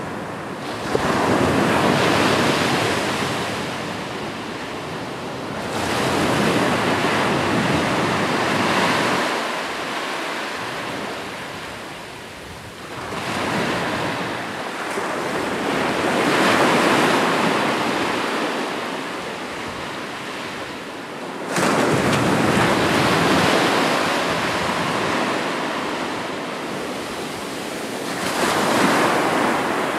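Ocean surf: about five waves break and wash in, each swelling and fading over several seconds, two of them crashing in suddenly.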